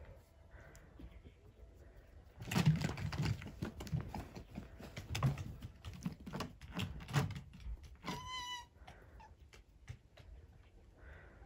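Red fox scratching and pawing at the base of a small wooden shelter in snow: a run of rapid, irregular scratches and knocks on wood with dull thuds. About eight seconds in, a short high whine.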